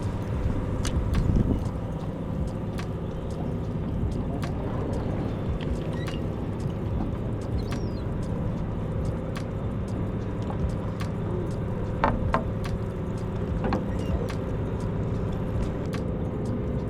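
Fishing boat's engine running with a steady low drone, with scattered light clicks and knocks of tackle on deck.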